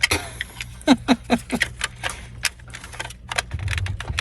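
Irregular sharp clicks and taps of hard plastic as a dash panel and its wiring connectors are handled, with a few short falling squeaks about a second in.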